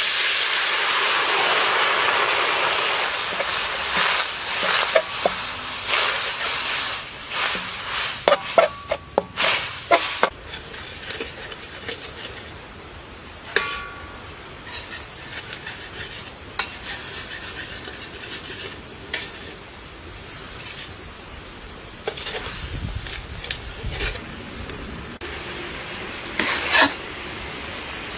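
Water poured into a hot metal pan sizzles loudly, easing after the first few seconds into a steady lower sizzle. A spatula knocks and scrapes against the pan as the sauce is stirred, most often in the first ten seconds or so.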